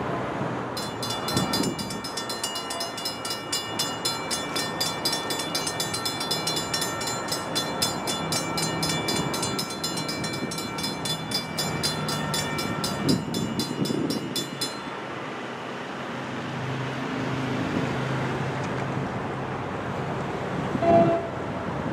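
Railroad grade-crossing warning bell ringing in rapid, even strokes as the crossing gates come down. It stops about 15 seconds in, leaving a low rumble.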